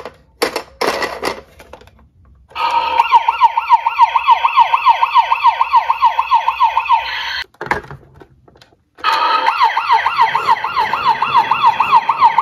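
Road Rippers toy police SUV sounding its electronic siren: a fast rising-and-falling yelp, about four to five sweeps a second. It runs for about four seconds, stops, then starts again. A few sharp clicks and knocks from the plastic toy being handled come first.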